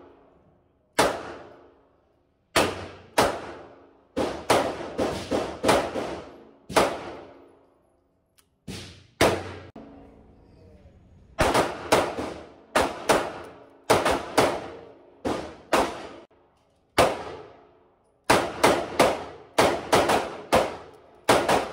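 Gunshots from a Smith & Wesson M1917 snub-nosed .45 ACP revolver in an indoor range, each sharp report trailed by ringing echo. They come singly and in quick strings of several shots, with short pauses between strings.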